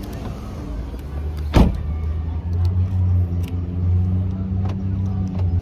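Car engine and road rumble heard from inside the cabin, a steady low hum that grows louder about halfway through. One sharp thump comes about a second and a half in.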